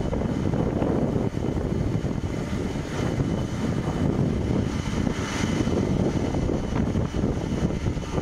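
Boeing 747-400's four turbofan engines running at high thrust for departure: a steady rushing jet noise with a thin high whine over it.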